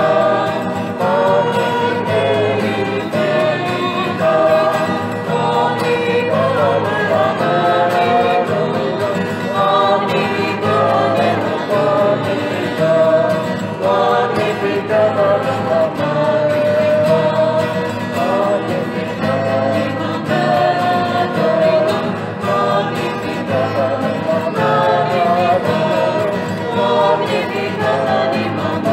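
Choir singing a hymn.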